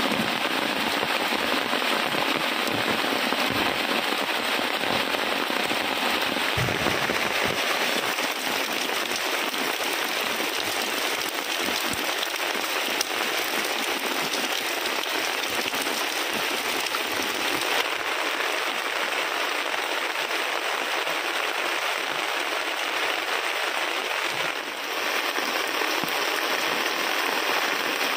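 Heavy rain falling steadily, a dense crackling hiss of drops striking the ground and surfaces.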